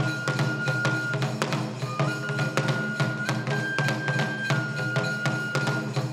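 Kagura accompaniment: a bamboo transverse flute plays long held notes that step between a few pitches, over a steady run of drum strokes.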